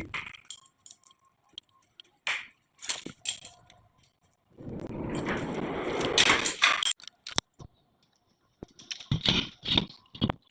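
Scattered metal knocks and clanks from workshop work on a loader bucket. About halfway through comes a hissing burst lasting about two seconds, with knocks in it, and a quick run of knocks follows near the end.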